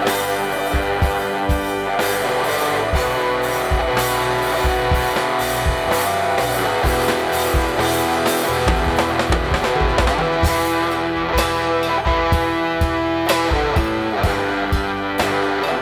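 Rock band playing live: electric guitars over a steady drum-kit beat.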